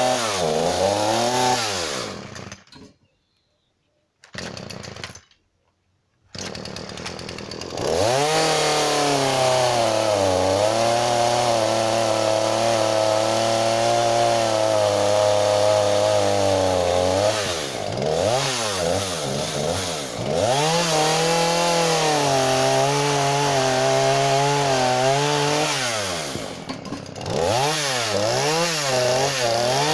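Husqvarna 236 two-stroke gas chainsaw revving in quick throttle blips, then cutting through a log in two long cuts with the engine pitch pulled down under load, with more blips between and after. About three seconds in the sound drops out twice for a second or so.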